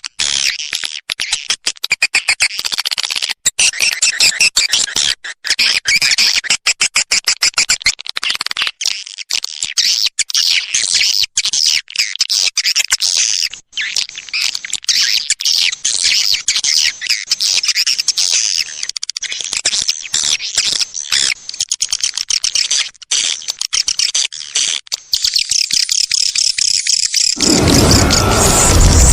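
Recorded swiftlet twittering played as a lure call: a dense, continuous stream of rapid high chirps. Near the end a loud, deep sound with steady pitches comes in over it.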